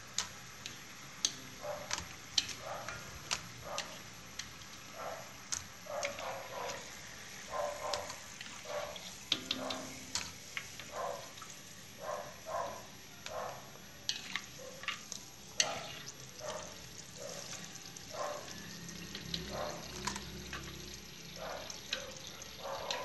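Sugar-marinated green banana slices deep-frying in oil in a wok: a light sizzle with frequent short pops and crackles.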